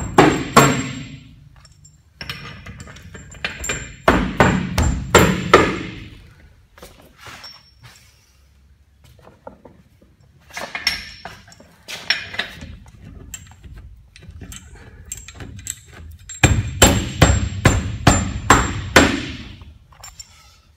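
Hammer tapping bolts through the tank wall: four bursts of quick, sharp strikes a few seconds apart, with a short metallic ring.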